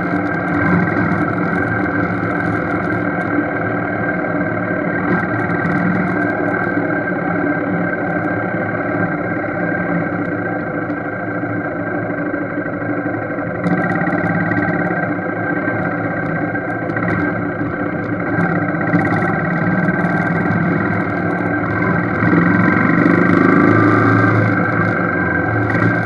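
Motorcycle engine and road noise heard through a helmet-mounted action camera, steady and unbroken while riding.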